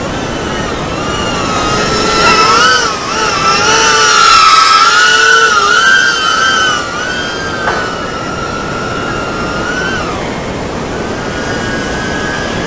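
Micro FPV drone's brushless motors whining in flight, the pitch rising and falling as the throttle changes. The whine is loudest from about two to seven seconds in.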